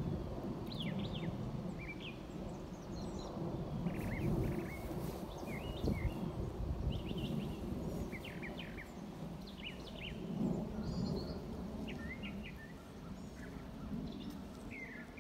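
Low, uneven rumble of a V-22 Osprey tiltrotor passing at a distance, slowly fading, with small birds chirping repeatedly over it.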